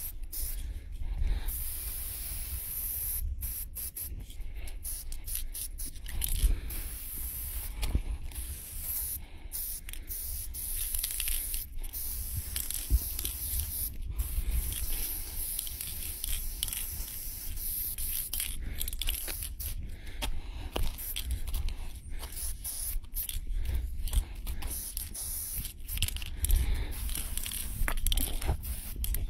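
Aerosol spray-paint can hissing in bursts as it sprays graffiti outline lines on a wall, stopping for brief moments between strokes, with a steady low rumble underneath.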